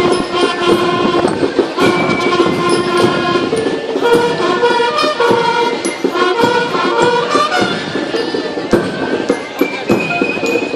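A marching band playing: sustained melody notes over steady, busy drumming.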